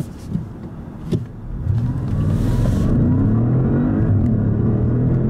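2016 Audi S6's twin-turbo V8 launched at full throttle, heard from inside the cabin. After a quieter first second or so, the engine note jumps up about a second and a half in and keeps rising in pitch as the car accelerates hard.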